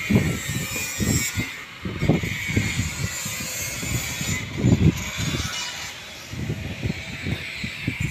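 Wind buffeting the phone's microphone in irregular low rumbles, over a steady high hiss of industrial plant machinery.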